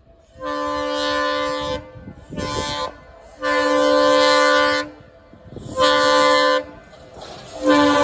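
Horn of an approaching pair of WDG3A diesel locomotives, sounded in five steady blasts: a long one, a short one, a longer one, a medium one and a fifth starting near the end.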